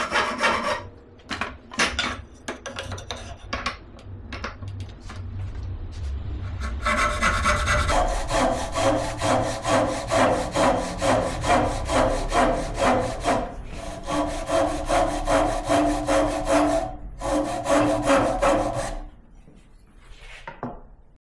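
Hand saw cutting through wood in steady back-and-forth strokes, about two a second. The strokes start light and become a strong, even rhythm, then stop near the end.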